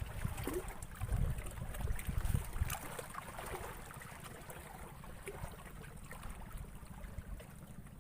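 Low rumble on the microphone with faint water sounds and a few small clicks; the rumble is strongest in the first three seconds, then eases off.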